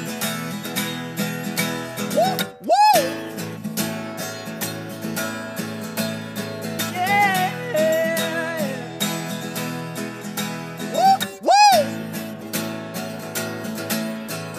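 Acoustic guitar strummed in a steady rhythm between sung verses, with three long wordless vocal notes that swoop up and down over it.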